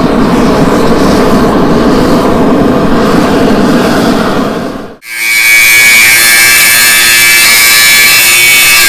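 A steady, dense rushing noise that cuts off abruptly about five seconds in. It is followed by the steady high whine of a belt grinder running, as steel blades are ground to shape.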